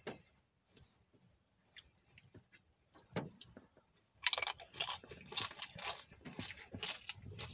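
A person biting into and chewing a crisp fried flauta: dense, irregular crunching that starts about four seconds in, after a near-quiet stretch with a few faint clicks.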